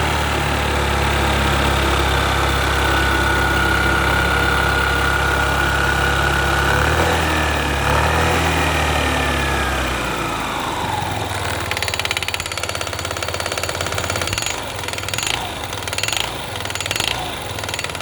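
Yamaha Gear scooter engine running at raised revs, then the revs fall away about ten seconds in to a lower, uneven idle with a regular knocking from the engine.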